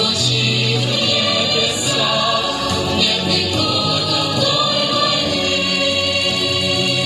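A vocal group singing together with musical accompaniment, holding long notes and moving to a new chord about halfway through.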